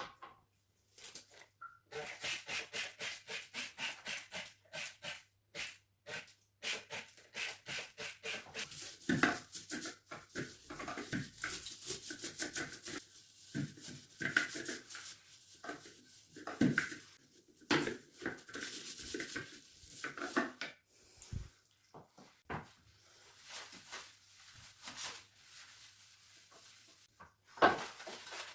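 Rhythmic scrubbing on a bathroom surface, about two to three strokes a second, in uneven runs broken by short pauses.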